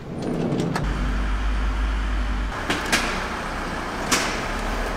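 Volkswagen T4 California camper van running in a car park, a steady rumble with a low hum, broken by a few sharp clicks and knocks.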